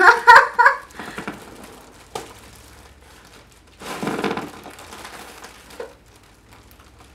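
A brief high, squeaky voice at the start, then the crinkling of a foil helium balloon being squeezed while helium is sucked from its neck, with a louder rustle about four seconds in.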